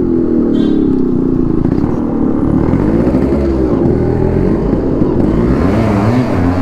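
Yamaha RX135 two-stroke single-cylinder engine running on the move, its revs rising and falling, with a rise and drop about three seconds in and another climb near the end, over wind and road noise.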